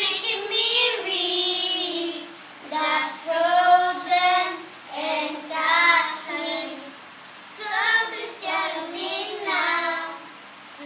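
A group of children singing a pop song together with no accompaniment, in phrases of about two seconds with short breaks for breath between them.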